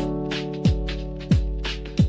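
Background electronic music with a steady beat: deep kick-drum hits and bright percussion over sustained chords.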